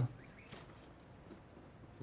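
Quiet room tone with a faint soft rustle about half a second in.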